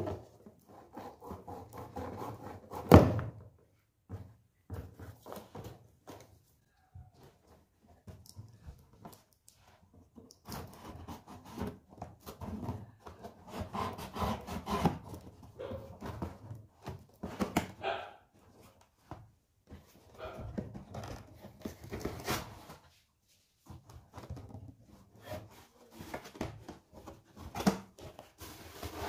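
Unboxing noises from a cardboard box: a knife sawing through the plastic string tied round it, then cardboard flaps rubbing and scraping as it is opened. Scattered knocks throughout, with one loud knock about three seconds in.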